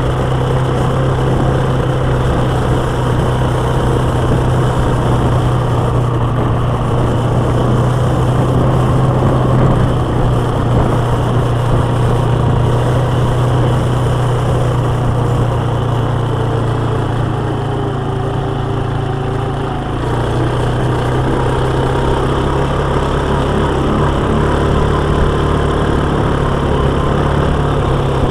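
Quad bike's engine running at a steady, constant pitch while driving along a gravel track, easing slightly about twenty seconds in.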